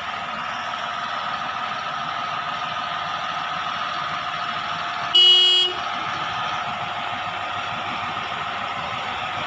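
New Holland 5620 tractor's CRDI diesel engine running steadily at low revs as the tractor creeps forward, with one short horn toot about five seconds in.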